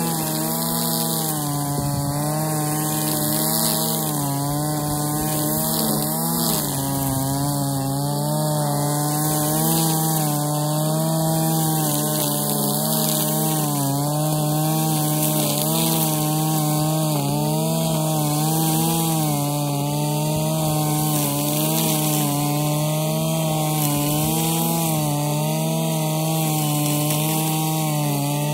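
Husqvarna 545RX brushcutter's two-stroke engine running at high revs with the trimmer line cutting grass, its pitch wavering a little as it is swept through the grass.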